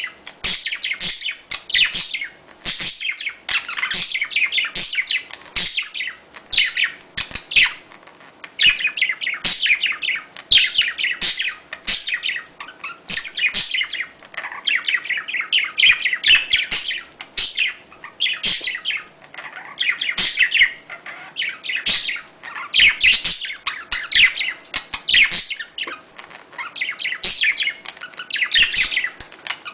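Budgerigars chattering and warbling nonstop, a rapid stream of short chirps and twittering phrases with brief pauses: the excited courtship chatter played to bring budgies into breeding condition.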